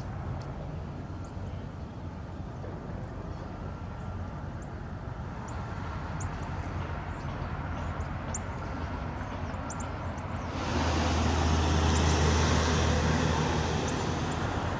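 Steady outdoor rumble of engines and traffic with faint short high chirps. About ten seconds in, a louder engine comes in suddenly and holds as a deep steady drone.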